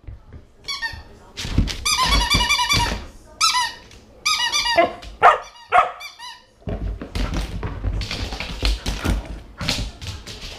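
A squeaky toy squeezed in quick runs of high squeaks, mixed with a Samoyed puppy's yips. For the last few seconds the puppy's paws scrabble and thud on a hard floor as it runs about.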